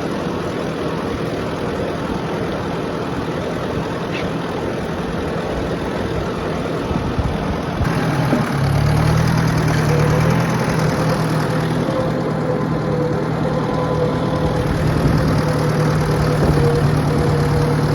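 Tractor engine running steadily. About eight and a half seconds in it gets louder and heavier, as if throttled up, and a steady humming tone joins it soon after.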